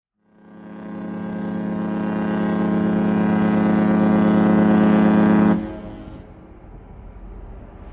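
Cruise ship Silver Nova's horn sounding one long blast on a single deep note. It starts about a quarter second in, grows louder, and cuts off sharply about five and a half seconds in, leaving a low rumble.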